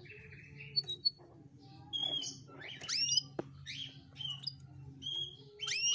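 Domestic canary giving a run of short chirps and quick rising whistled calls, with a steady low hum underneath.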